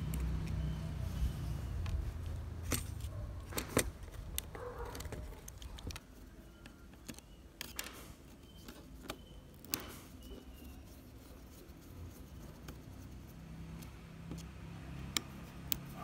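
A screwdriver working screws loose on a mud-caked RC car assembly: scattered small clicks and scrapes of the metal tip against the screws and plastic parts. A low rumble and hum sit under the first six seconds or so, then fade.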